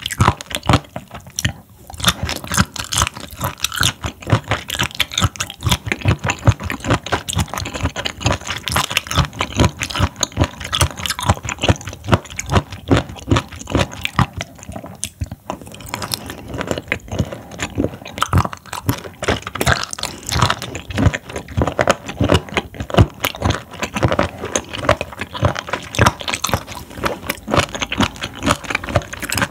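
Close-miked chewing of raw seafood sashimi, with many rapid, crunchy mouth clicks. There are two brief lulls, about a second and a half in and around fifteen seconds in.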